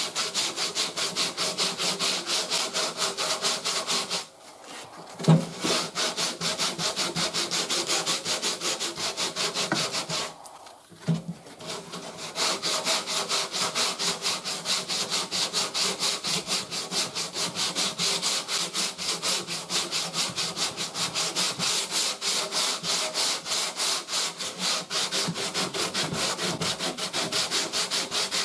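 Hand sanding block rasping over hardened body filler on a car fender in quick back-and-forth strokes, a few per second. The strokes pause twice, about four and ten seconds in, each pause with a single knock.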